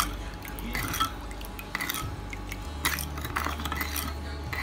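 Metal spoon stirring a vinegar, sugar and chili dressing in a wooden bowl: the liquid swishes and the spoon knocks and scrapes against the bowl in irregular clinks.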